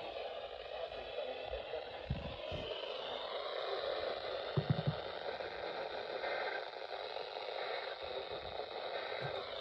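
Steady hiss of static from a weather radio receiver's speaker, with a few dull low thumps about two and four and a half seconds in.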